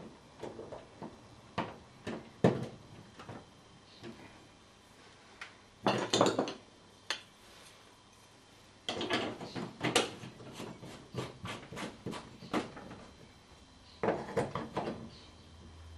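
Scattered clicks, taps and short rattling scrapes of small plastic and metal parts being handled while a lamp holder's flex is screwed into the terminals of a plastic ceiling rose.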